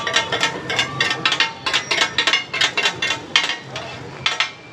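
Metal cooking utensils clinking and clattering rapidly and irregularly, several strikes a second, as food is made at a street burger stall, over background voices.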